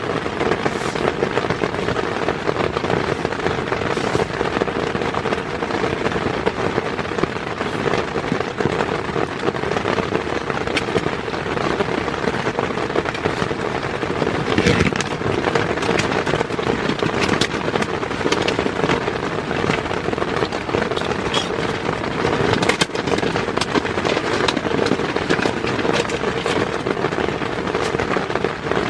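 Heavy rain falling steadily on a tent: a dense patter on the fabric, with frequent sharper hits of single drops.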